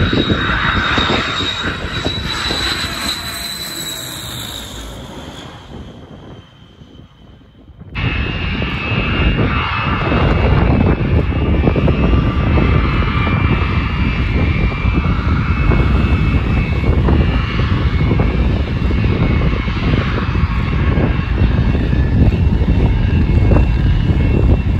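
Aircraft engines: a loud engine noise with a high whine fades away over the first six seconds. Then, after a short quiet dip, loud steady engine noise from a second aircraft begins abruptly.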